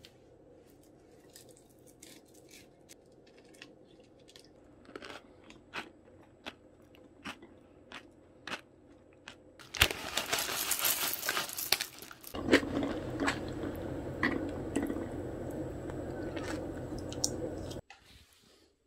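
A spoon stirring frozen blueberries and granola into yogurt in a glass dessert cup. There are scattered light clicks at first, then about ten seconds in a dense stretch of scraping and crunching. Steadier stirring with clinks follows, and it stops suddenly near the end.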